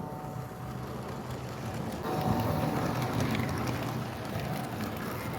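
Bachmann OO gauge Class 42 Warship model locomotive running on the track with its train of coaches: a steady rolling rumble of the motor and wheels, getting louder about two seconds in.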